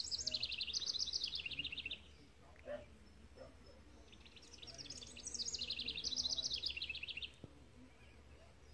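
A songbird singing twice, each song a rapid trill of high notes stepping downward for about two seconds, a few seconds apart.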